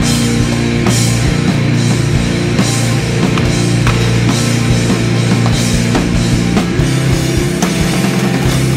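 Loud heavy rock music with a steady, driving drum beat.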